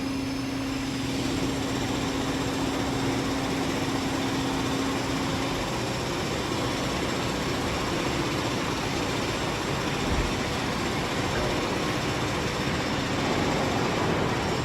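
Rafamet UBC 150 CNC wheel lathe running, a steady machine noise with a hum that stops about five and a half seconds in.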